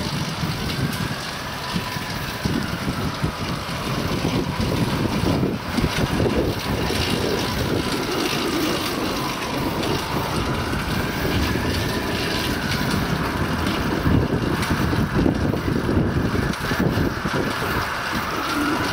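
Wind buffeting the microphone and the rumble of bicycle tyres rolling on concrete as the camera moves along with a fixed-gear bike held in a wheelie. A faint whine slowly rises and falls in pitch several times above the noise.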